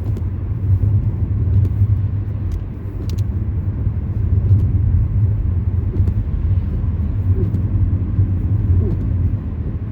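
Steady low rumble of a car driving, its engine and tyre noise heard from inside the cabin, with a few faint scattered ticks.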